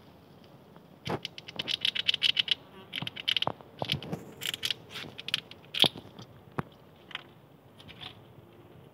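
Eurasian red squirrel at a wooden feeder on a tree trunk, making rapid clicking and scratching sounds: claws on bark and wood, and gnawing. These come in quick runs from about a second in until about six seconds, with a few single sharp taps after.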